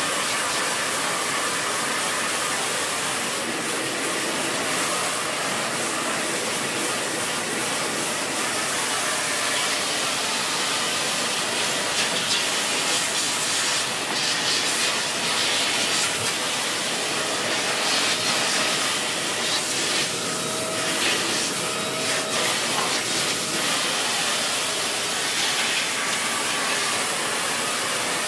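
Dyson Big Ball Animal (CY23) cylinder vacuum cleaner running with the dusting brush attached: a steady rush of suction hiss, with brief changes in the airflow from about twelve seconds in as the brush moves over surfaces.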